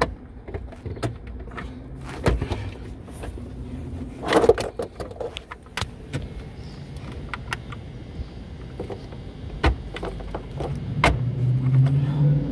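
Scattered clicks, knocks and light rattles of plastic parts being handled as a car's rear body control module is fitted and its wiring connectors are worked on, with a louder bump about four seconds in. Near the end a steady low hum builds up.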